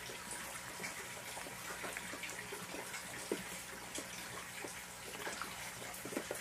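Steady splashing of water in a garden fish pond in the rain, with many small drips and splashes scattered through it.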